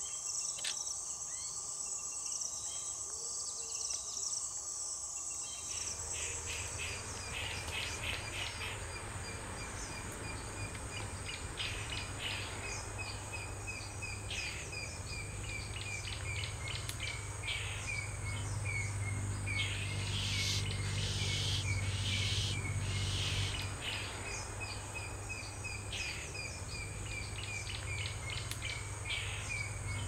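Steady high-pitched trilling of rainforest insects, with a bird calling over it in short repeated notes from about six seconds in, and a low hum underneath.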